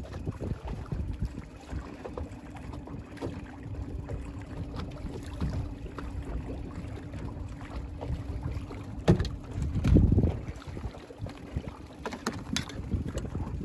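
Outboard motor running steadily at trolling speed, a low even hum, with wind buffeting the microphone, loudest in a gust about ten seconds in. A few sharp clicks come in the second half.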